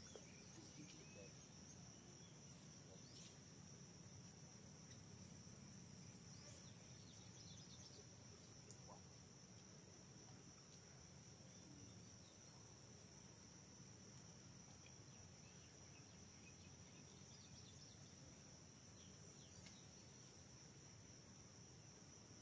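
Faint, steady chorus of insects, a high-pitched trilling in two layers that carries on unbroken, over a low background hum.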